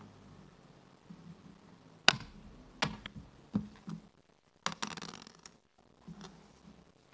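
Wooden backgammon checkers clacking down on a wooden board as they are moved by hand: a few sharp clicks about two, three and three and a half seconds in, then a short clatter about five seconds in.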